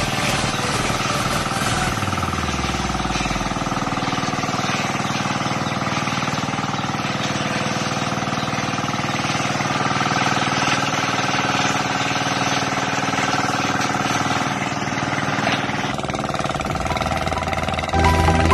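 Small engine-driven water pump running steadily, with water spraying from its hose.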